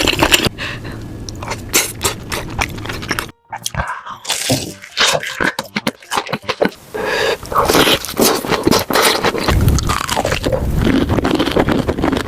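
Close-up eating sounds: a person biting, chewing and crunching food with wet smacking and crackly clicks, cut off briefly about three seconds in.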